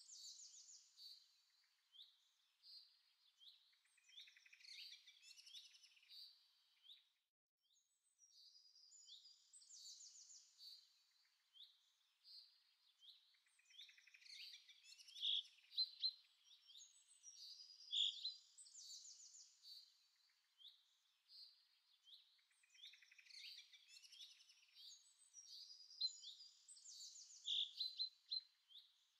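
Birdsong: several small birds chirping and trilling in quick high notes, with a few louder calls standing out.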